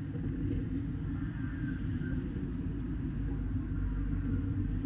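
Thunder rumbling as a low, steady rumble through a rural ambience recording, with a faint higher-pitched sound about a second and a half in.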